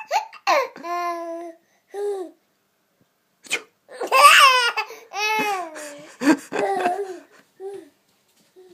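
A baby laughing and babbling in high-pitched bursts, loudest about four seconds in.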